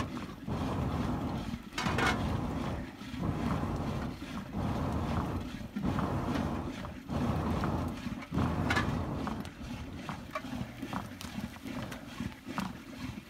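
A person blowing on the embers of a wood fire to kindle it, in repeated breaths about a second long with short pauses between, each a breathy gust of air into the hearth.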